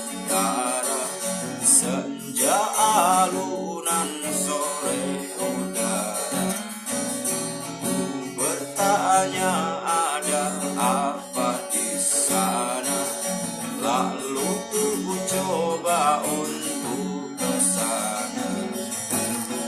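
Song played on a strummed acoustic guitar, with a wavering melody line over the chords.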